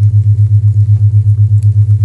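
A loud low isochronic tone pulsing evenly on and off, about six or seven pulses a second, over the faint crackle of a fireplace fire.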